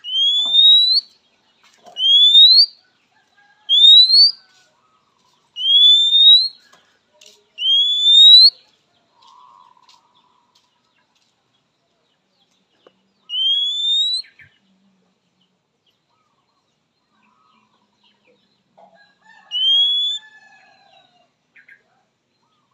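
Oriental magpie-robin (kacer) giving single clear rising whistles: five in a row about two seconds apart, then two more spaced well apart. These are its characteristic calls to a rival.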